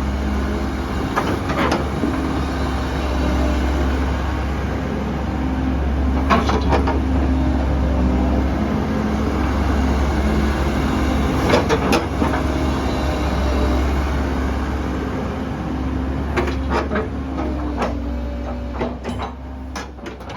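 Komatsu PC130-7 excavator's diesel engine running steadily through the demonstration, with several sharp clanks from the machine along the way.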